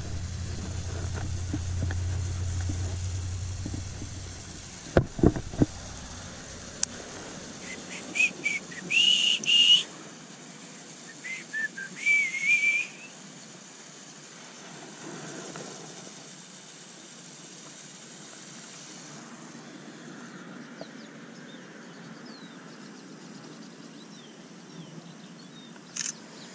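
High whistled notes in two bouts, about 8 and 12 seconds in, each with short rising glides. Before them there is a low rumble and a few sharp knocks about 5 seconds in; after them only faint outdoor background.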